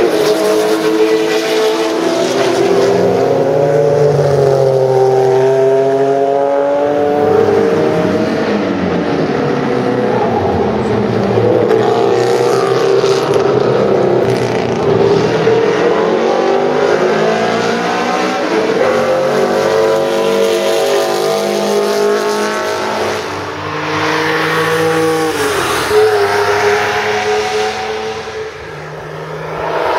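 Porsche racing cars at full throttle on a race track, several passing one after another, engine pitch rising through the gears and falling as each car goes by.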